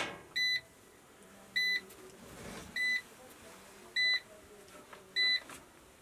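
Short electronic beeps from a solar power system's inverter, repeating evenly about every second and a quarter, five in all. A sharp click right at the start.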